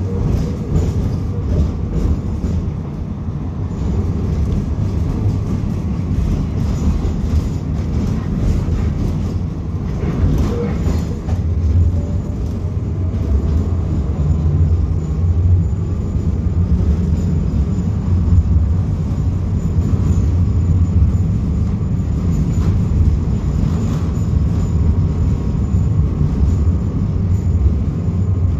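A BKM-60102 tram running along its track, heard from inside the passenger saloon: a steady low rumble of wheels on rail and the running gear, with a faint rising whine about ten seconds in.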